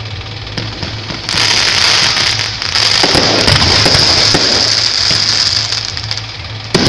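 Aerial fireworks bursting overhead: a dense crackling of sparks sets in about a second in and runs for several seconds before thinning out, and a sharp bang comes near the end.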